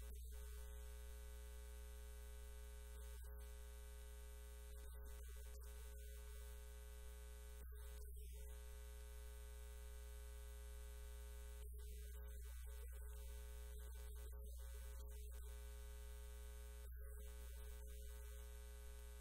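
Steady electrical mains hum: a strong low drone with a buzz of many evenly spaced overtones, the upper buzz dropping out briefly several times.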